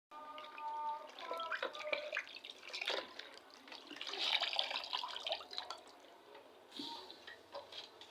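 Water splashing and dripping, with small clicks and knocks, as something is washed by hand in water. A short pitched whine sounds in the first second.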